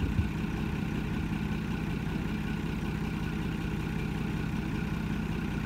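Kato truck-mounted mobile crane's diesel engine running steadily as the crane works its suspended load, with one short knock just after the start.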